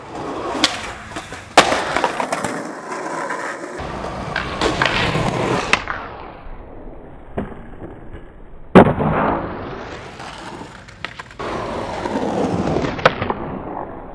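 Skateboard wheels rolling on concrete, broken by several sharp clacks of the board popping and landing. The loudest come about a second and a half in and just before nine seconds.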